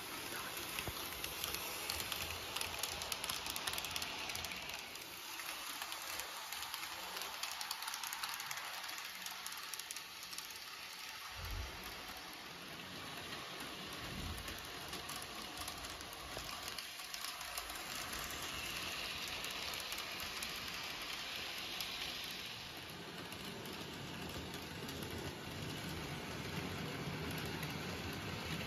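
N gauge model diesel locomotive running along the track with its train of cars: a steady hissing whir from the small motor and the wheels on the rails, with fine rapid clicking. It swells a little near the start and again about two-thirds of the way through.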